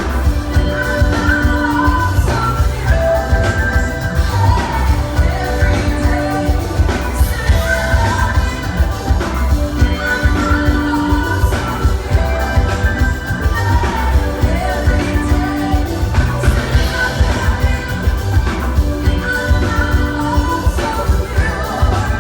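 Live band playing an upbeat pop song with vocals over a steady, heavy bass beat, with a melodic phrase that repeats every couple of seconds.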